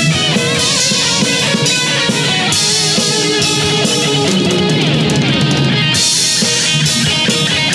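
A rock band playing an original song with guitar and drum kit, with a falling guitar slide a little past the middle.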